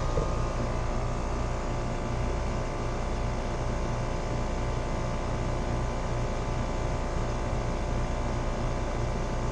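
Rheem air-conditioning unit running steadily, a constant mechanical hum with several steady tones, after a pound of refrigerant has been removed to bring the pressure down. It runs smoothly, with no thumping.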